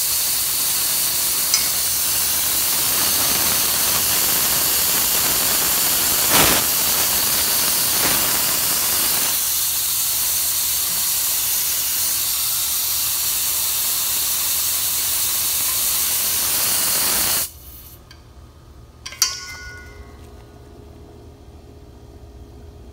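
Propane hissing hard out of a 40 lb cylinder's fixed liquid-level vent, opened with a screwdriver while the tank fills, to bleed off air the owner believes is trapped in the tank. The hiss thins out about halfway and cuts off suddenly when the vent is closed, followed a little later by a single metallic clank.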